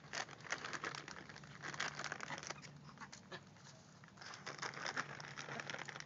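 White ibises pecking popcorn off dirt ground with their long bills: dense, rapid clicking and pattering that sounds like ducks eating. It thins out around the middle and picks up again.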